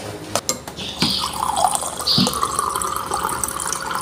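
Water running from a water dispenser's tap into a drinking glass, filling it. It starts about a second in and runs steadily.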